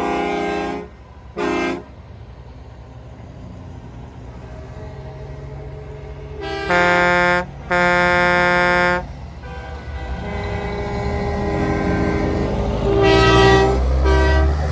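Passing semi trucks sounding air horns: a blast that cuts off under a second in, a short toot, then two long, loud blasts about seven seconds in and another near the end. Under them, a truck's diesel engine rumbles louder as it passes.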